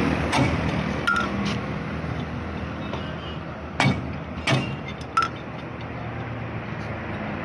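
Several sharp metallic clinks of a cross lug wrench and wheel nuts as a wheel's lug nuts are worked loose on a mini truck, over steady background noise.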